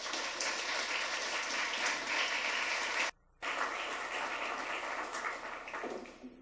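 Audience applauding, a steady clatter of many hands clapping. It cuts out for a moment about three seconds in, then fades away near the end.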